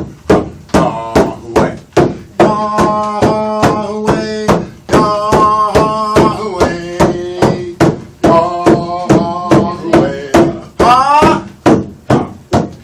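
A man singing a chant with held notes while beating a rawhide frame drum with a beater, a steady beat of about two strokes a second. His voice climbs in a rising slide near the end.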